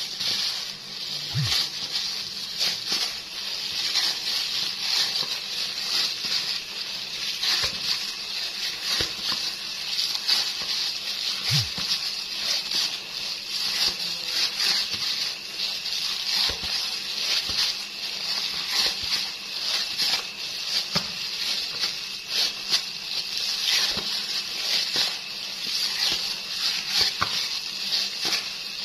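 Hands stirring and kneading a crumbly, oily carp-bait mash, giving irregular soft crackles and squishy thumps over a steady hiss.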